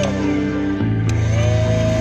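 Background music, with the whine of the homemade vacuum cleaner's small electric motor falling away as it is switched off. After a click about a second in, the whine spins back up to speed.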